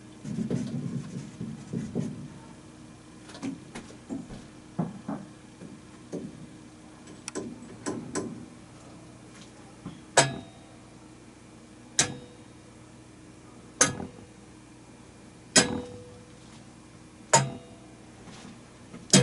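Foley sound effects. First comes some handling rustle and a few light scattered clicks, then sharp knocks about every two seconds, each with a short ring after it.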